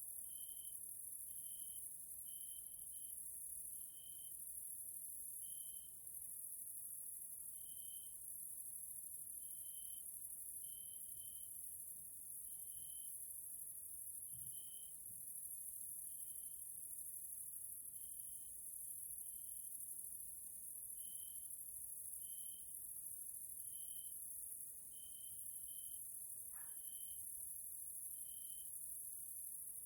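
Grasshoppers stridulating: a steady high-pitched hiss with short, lower chirps repeating about once a second, sometimes in pairs.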